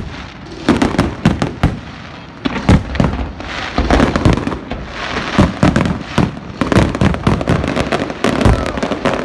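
Fireworks display: a string of sharp bangs and crackles, growing denser and more continuous about three and a half seconds in.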